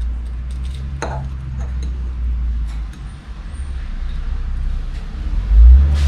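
A fork clinking and scraping on a plate as crumbed fish is cut, a few light clicks, the clearest about a second in. A steady low rumble runs underneath and swells loudly near the end.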